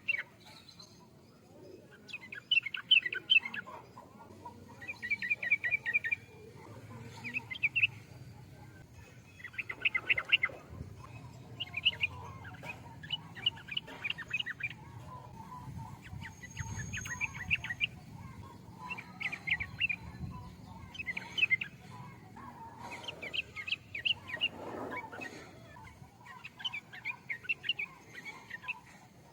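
Yellow-vented bulbul (trucukan) singing: short bubbly chirping phrases repeated every one to two seconds.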